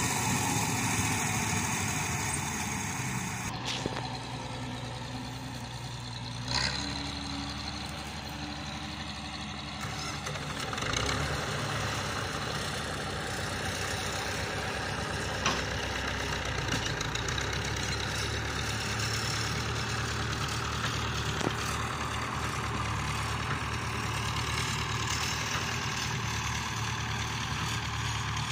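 A Bizon Z056 combine harvester's diesel engine and threshing machinery run steadily, loud at first and fading over the first few seconds as the combine moves away. From about ten seconds in there is a steadier engine drone that fits a farm tractor running close by, with a few single knocks.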